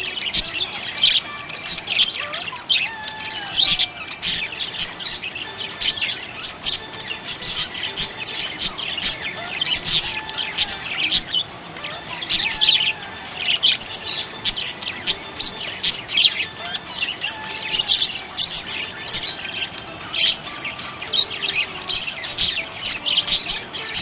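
Budgies chirping without a break: a dense stream of short, high chirps, with now and then a lower warbling slide.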